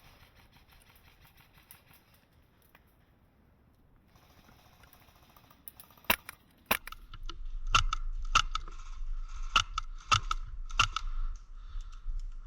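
Airsoft guns firing single shots as sharp snaps: about seven over four seconds, starting about six seconds in after a quiet stretch, with a steady low rumble under the later shots.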